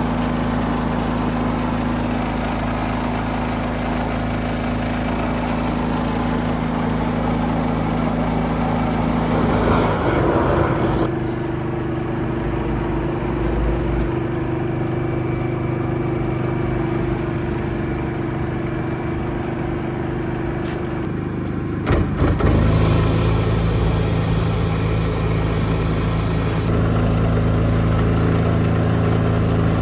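Engine of a high-pressure drain jetting machine running steadily, its running note changing twice, about ten seconds in and again about twenty-two seconds in.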